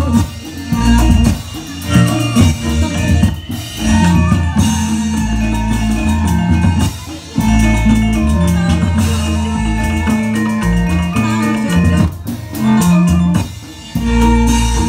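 Loud Reog Indramayu accompaniment music: drums hitting in a busy rhythm over a stepping bass line and melodic percussion, played through a loudspeaker system.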